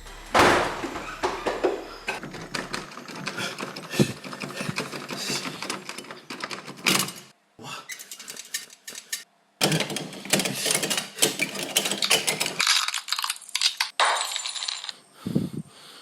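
Dense clattering and clinking of small hard objects, like things falling and breaking, with two brief drops to silence about halfway through.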